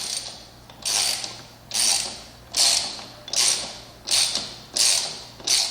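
Ratchet wrench with a 17 mm socket tightening a bolt, its pawl clicking in a quick buzz on each backswing; about seven strokes come at an even pace of a little more than one a second.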